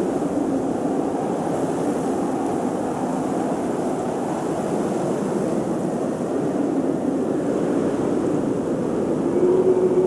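Blizzard wind blowing steadily in gusts, a low rushing noise with a faint wavering howl, swelling a little near the end.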